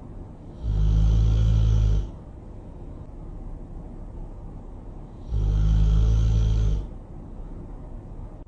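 Really loud snoring: two long, low snores about four and a half seconds apart, each lasting about a second and a half, with a quieter steady rumble between them.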